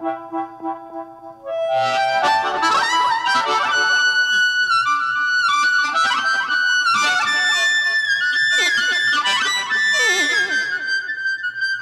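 Amplified blues harmonica solo, the harp cupped against a handheld microphone, with the band behind it. It starts softly, comes in loud about two seconds in with held notes, and bends several notes down in pitch near the end.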